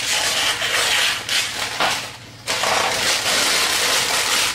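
Baking paper crinkling and rustling as it is cut off the roll and pressed into a plastic tub to line it, in two stretches with a short pause about two seconds in.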